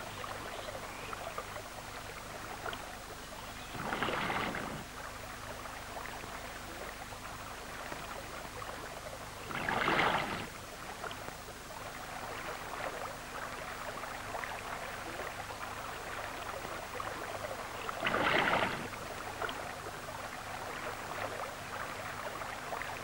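Steady rush of fast water running over the rocks of a river, with three brief louder surges of about a second each, and a faint steady hum underneath.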